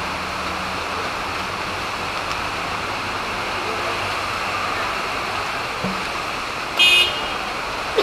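Steady rush of rain with road traffic passing below. Near the end, a vehicle horn gives one short toot.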